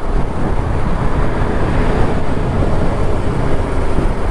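Motorcycle on the move: the TVS Apache RR 310's single-cylinder engine running under steady wind rush on the helmet microphone.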